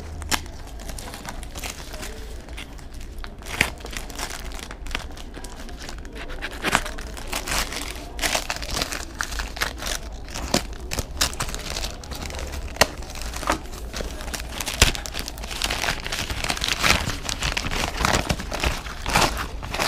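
A paper-and-tape-wrapped parcel being cut open with a blade, then its wrapping torn and crumpled as the contents are pulled out. Irregular sharp crackles and rips, coming thicker near the end.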